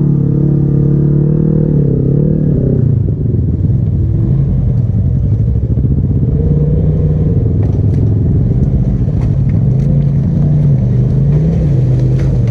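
Side-by-side UTV engine running close by at a steady low pitch, dipping briefly about two seconds in and wavering a little later on. A few light clicks and knocks are heard in the second half.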